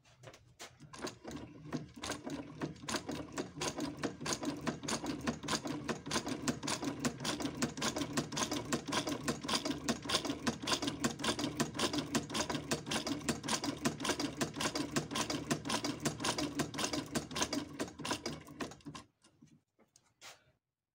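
Adler shoemaker's sewing machine running steadily on test stitches through cloth, an even rapid clatter of the needle stroking that stops about nineteen seconds in, with a few last strokes after.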